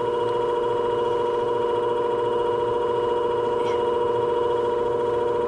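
Shear-sharpening machine running with its 1000-grit abrasive disc spinning free, no blade against it: a steady motor hum with a higher whine over it.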